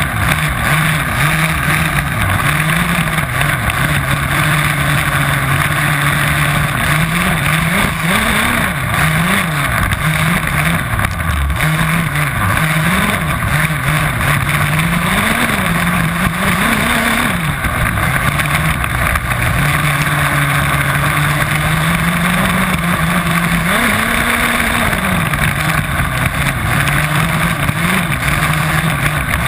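HPI Baja 5B 1/5-scale RC buggy's two-stroke petrol engine heard up close from on board, its pitch repeatedly rising and falling as the throttle is opened and eased, over a steady rush of noise.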